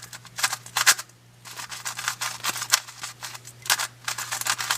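X-Man Tornado V2 magnetic 3x3 speedcube being turned by hand: quick irregular runs of plastic clacks as the layers turn and snap into place, with a short pause about a second in.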